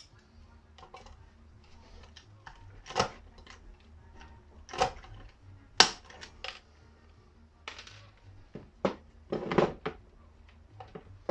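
Tools and metal parts being handled and set down: a string of irregular clinks and knocks, the sharpest about six seconds in and a quick cluster near the end.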